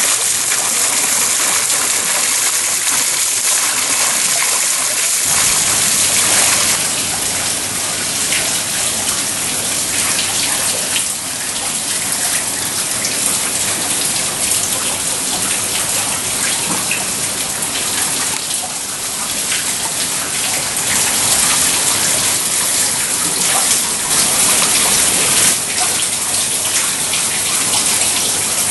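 Water falling and splashing steadily: a loud, bright, hissing rush that turns fuller and deeper about five seconds in.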